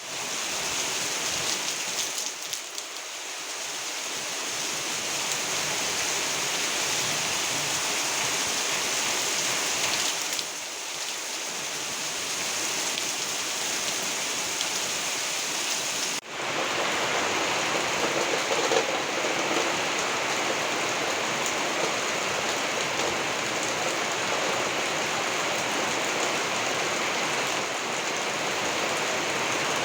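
Rain falling steadily, a dense even hiss with no distinct drops standing out; the sound cuts out for an instant about sixteen seconds in, then resumes.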